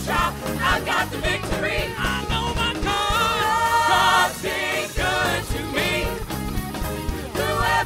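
Live Pentecostal worship music: several singers on microphones lead an upbeat gospel praise song over a band. A long held sung note comes a little past the middle.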